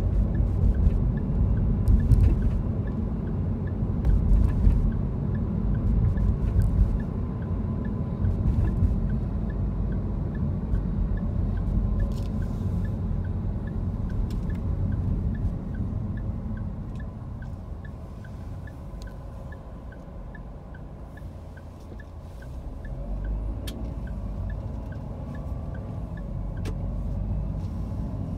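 Car cabin noise while driving in city traffic: a steady low road and engine rumble that falls quieter for a few seconds past the middle, then rises again. A faint, evenly spaced ticking runs through it.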